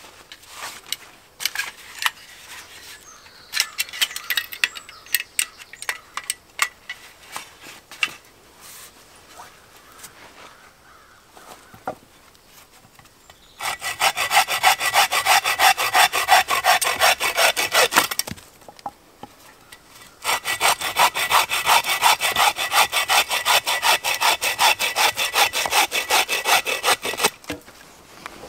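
Small bow saw cutting through a birch log with quick, steady rasping strokes, in two runs of about four and seven seconds with a short pause between. Before the sawing, scattered clicks and rustles as gear on a canvas pack is handled.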